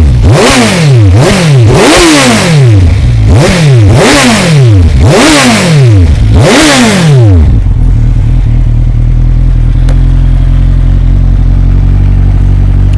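Kawasaki Z1000SX's inline-four engine breathing through an Akrapovic slip-on muffler, revved in about seven quick throttle blips that each rise sharply and fall back. It then idles steadily for the last five seconds or so.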